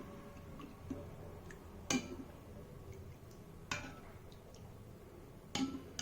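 A kitchen utensil knocking against a bowl: three sharp clinks about two seconds apart, with a few fainter ticks between, as chopped coriander goes into the solkadhi mixture.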